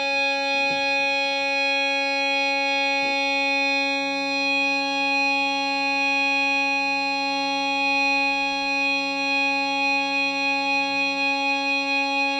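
Distorted electric guitar holding one sustained note, ringing on without change, with a slight wavering in level near the end.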